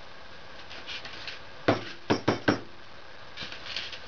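Four sharp knocks in quick succession about halfway through, with fainter scraping before and after: the hollow wooden log of a homemade birdhouse being handled and knocked.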